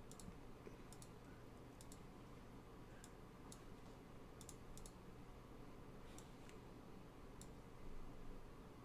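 Faint, sharp computer mouse clicks at an irregular pace, several in quick double-click pairs, over a low steady hum.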